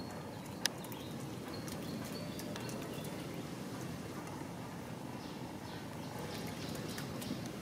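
Outdoor ambience: a steady low rush of background noise with a few faint, short high chirps and one sharp click less than a second in.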